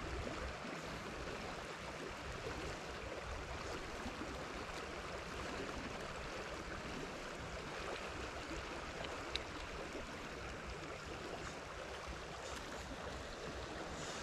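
Steady rushing of a flowing river current carrying flecks of foam, with one faint sharp click about nine seconds in.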